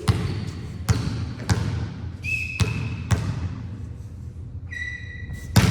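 A ball struck and bouncing on a gym court: about six sharp thuds with a short echo after each. Two brief, high sneaker squeaks on the court floor come about two and five seconds in.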